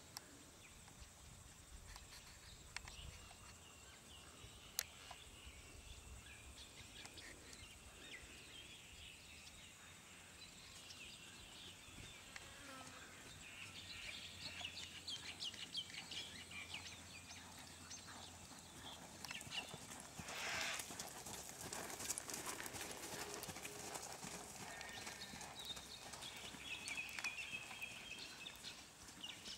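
Faint, soft hoofbeats of a horse trotting on an arena's sand footing, over quiet outdoor background with high chirping calls and a few brief gusts of noise.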